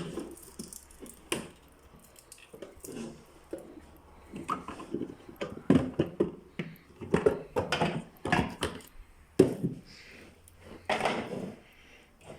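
Plastic parts of a fridge's built-in water dispenser being handled, its lid lifted and pieces worked loose, making irregular knocks, clicks and short clatters.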